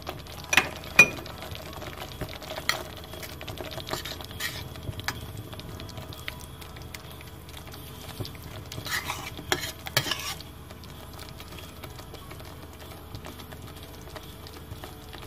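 A metal spoon stirring fried onions into thick tomato sauce in a metal pot, clinking and scraping against the pot. The loudest knocks come about half a second and one second in, and a burst of scraping comes around nine to ten seconds. After that only a quieter steady background remains.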